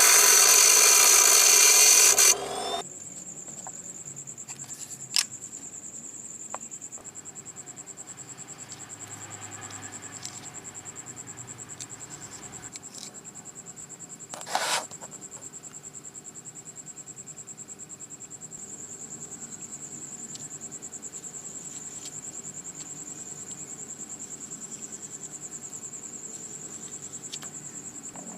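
A motor or power tool runs loudly and cuts off about two and a half seconds in. After that, a cricket chirps steadily in a fast, high trill, with a couple of short knocks.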